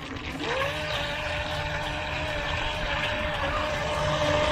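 4DRC S3 RC speed boat's brushed electric motor whining, rising in pitch in the first second and then holding a steady tone as the boat runs. Algae picked up from the pond is fouling it, which the owner says is definitely affecting its performance and making it bog down.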